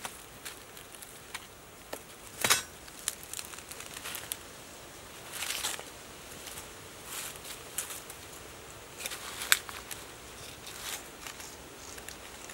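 Rotting, fibrous plant stalk being torn and picked apart by hand: scattered crackles and snaps of splitting fibres with soft rustling, the sharpest snaps about two and a half seconds in and again near the ten-second mark.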